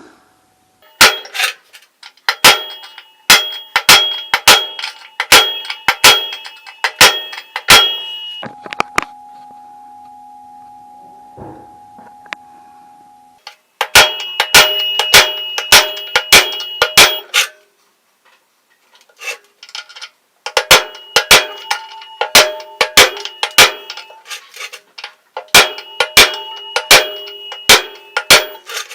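Hammer blows on steel, each ringing on with a metallic ring. They come in four runs of about two blows a second, with pauses between. After the first run a steady low hum lasts about five seconds.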